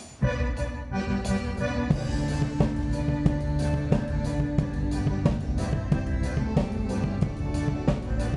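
Live band playing an instrumental passage after a sung line: drum kit keeping a steady beat under held chords and a bass line.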